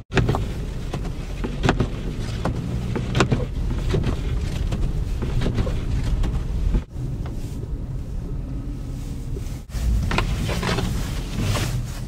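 Car driving on a snowy road: a steady low road and engine rumble with irregular knocks and thumps. The sound drops out briefly twice.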